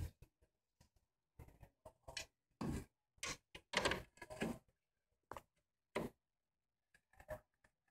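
Side channel with pile weatherstrip being handled and fitted against a wooden frame: a string of faint, irregular short scrapes, rubs and knocks, the loudest cluster a few seconds in.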